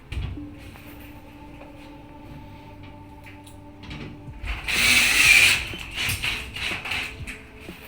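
Clicks and knocks from handling tools and material during a plasterboard repair. About five seconds in there is one loud noisy rasp lasting about a second, under faint background music.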